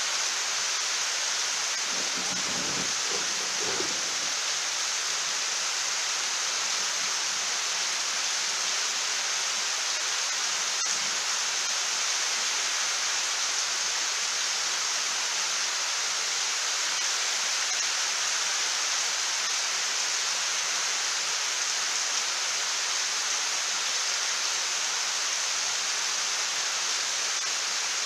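Heavy rain falling steadily, a dense even hiss.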